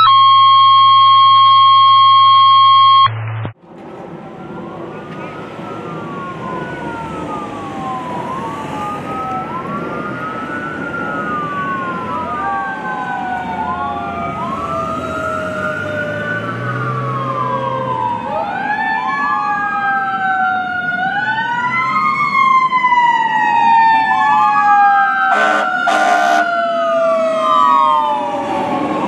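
A loud, steady electronic tone for about the first three seconds. Then a fire engine's sirens wail, with several rising and falling tones overlapping above the truck's running noise and growing louder as it approaches. Near the end there is a short burst of rapid horn blasts.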